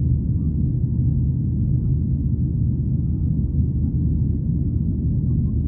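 Steady low rumble inside the cabin of a Boeing 737-800, from its CFM56-7B jet engines and the rushing air.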